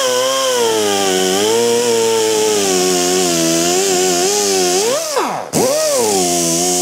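A small power-tool motor whining at varying speed, its pitch wandering. About five seconds in it speeds up sharply, cuts out for a moment, then revs back up and runs on.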